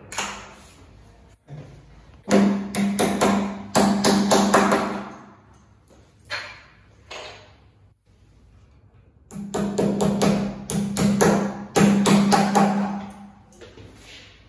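Power tool used in bouts, driving screws during furniture assembly: a steady low hum with rapid knocking. There are two long runs of a few seconds each, with a few short bursts around them.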